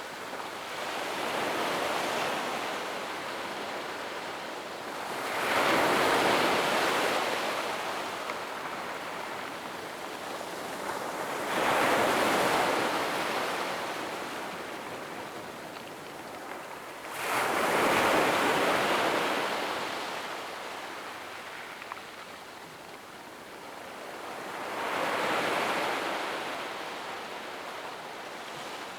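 Gentle ocean waves breaking on a sandy beach and washing up the shore, five waves in turn, each surge swelling then fading into a soft hiss before the next.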